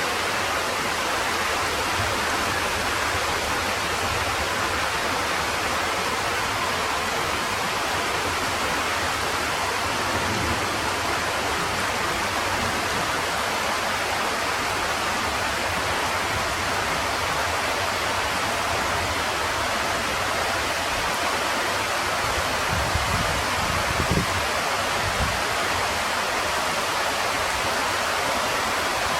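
Heavy rain falling steadily: a dense, even hiss of a downpour, with a few low bumps a little over three-quarters of the way through.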